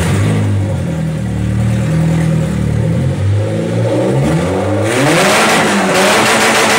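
Volkswagen Passat B5's 1.8T turbocharged four-cylinder engine running loudly, through an exhaust whose silencer is due for repair. It runs steadily, then from about three and a half seconds in it is revved up and down several times, getting louder about five seconds in.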